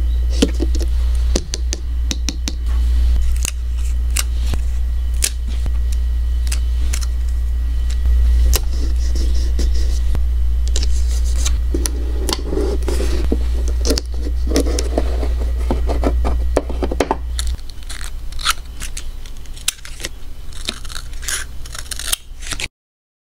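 Paper stickers handled up close: rustling, scraping and many small clicks of metal tweezers tapping and sliding on paper, over a steady low hum. It cuts off abruptly shortly before the end.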